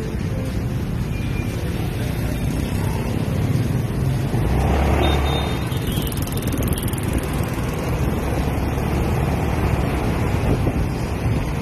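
Motor scooter riding through city street traffic: steady engine and road noise, swelling to a louder rush about four seconds in.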